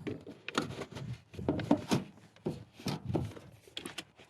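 Spilled chicken feed being scraped and scooped up, a dozen or so short scrapes and rustles at uneven intervals.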